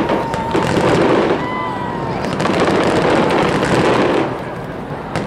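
Fireworks display: shells bursting and crackling over the water in a dense, continuous barrage that eases off about four seconds in.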